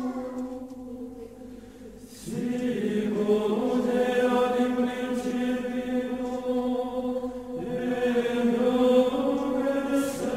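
Background music of slow choral chant: long held sung notes that shift to new pitches about two seconds in and again near eight seconds.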